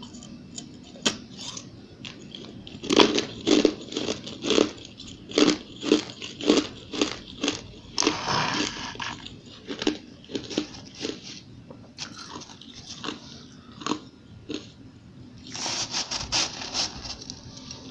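Close-up crunching and chewing of hard frozen ice in the mouth, a quick series of crisp crunches about two a second, with a longer grinding crunch about eight seconds in and another dense run of crunching near the end.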